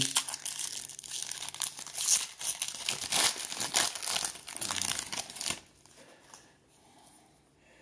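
Trading-card pack wrapper being torn open and crinkled: a dense run of crackling that stops about five and a half seconds in.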